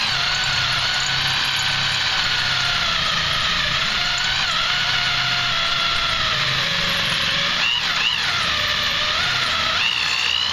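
Power drill boring a hole through steel bar, its motor whine running steadily and wavering in pitch as the bit loads and unloads in the metal.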